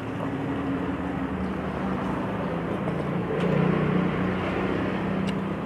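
Passing road traffic, mainly motorbike engines, humming steadily and swelling as one goes by about three and a half seconds in.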